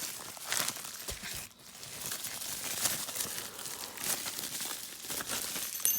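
Packaging crinkling and rustling in irregular crackles as the rifle scope is unwrapped, with a brief pause about a second and a half in.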